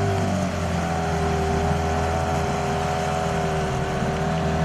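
Boat motor running steadily at constant speed, a hum with a slight drop in pitch about half a second in.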